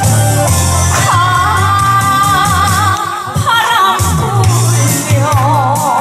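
Trot song played through a busking PA: a female voice sings long held notes with a wide vibrato over a backing track with a steady bass beat.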